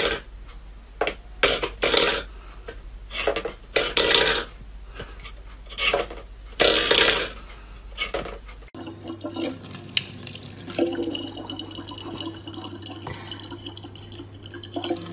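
A stainless-steel pet bowl scraped and knocked across a wooden floor by a cat's paw, in several short irregular scrapes. About two thirds of the way through, a thin stream of water from a tap runs steadily into a plastic bottle, over a low hum.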